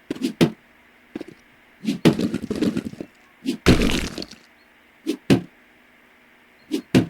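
Irregular sharp cracks and knocks, about a dozen short hits in small clusters with quiet gaps between them.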